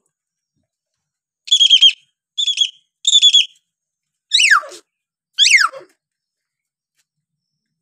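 Common hill myna calling: three short, rich calls in quick succession, then two loud whistles that drop sharply in pitch.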